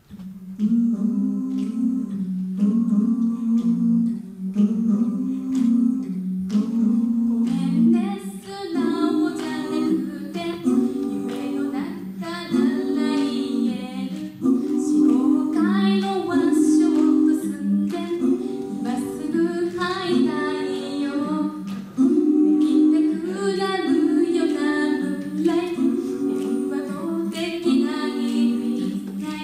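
Female a cappella group singing with microphones: sustained sung backing chords open the song, and a higher melody line joins about eight seconds in, filling out the harmony.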